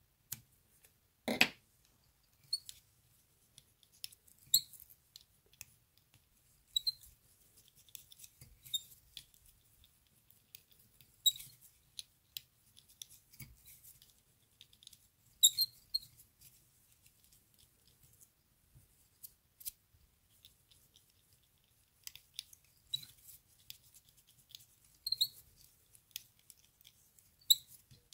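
Small scissors snipping through a latex strip about a second and a half in, followed by scattered light clicks and ticks from fly-tying thread and tools being handled at the vise.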